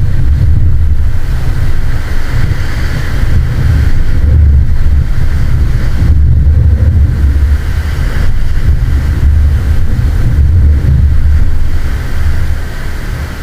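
Strong wind buffeting the microphone: a loud low rumble that rises and falls in gusts.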